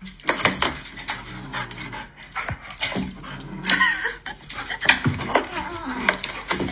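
Golden retriever panting.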